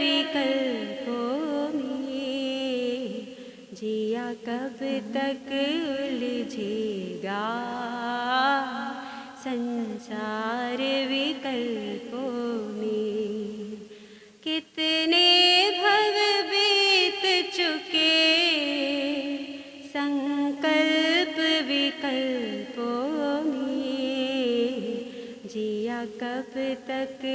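A woman singing a Hindi Jain devotional song (bhajan) solo, in long held notes with ornamented slides, pausing briefly about halfway through.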